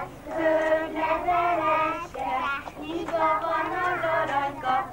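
Small children and women singing a children's circle-game song together, in short sung phrases.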